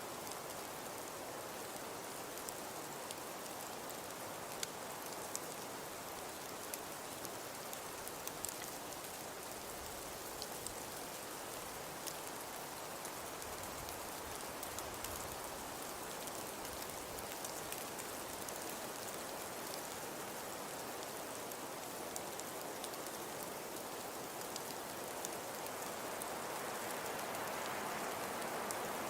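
Steady pattering hiss of falling precipitation with scattered light ticks, presented as a snowfall ambience. It grows a little louder near the end.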